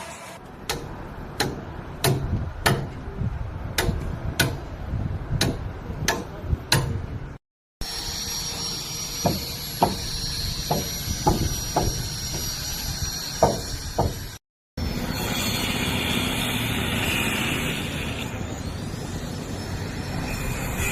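Construction work heard in three short cuts: a run of sharp, evenly spaced hammer knocks, about one to two a second; then more knocks over a steady high whine; then a steady machine noise with no knocks.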